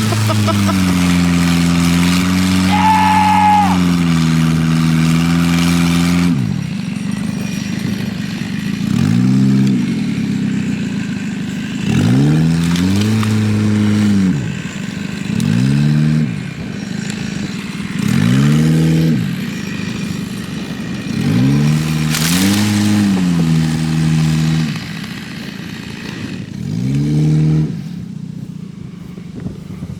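Geo Metro engine held at high revs for several seconds, then revved again and again in surges, each rising and falling, about every two to three seconds. The car is under load, pulling on a rope tied to a dead tree.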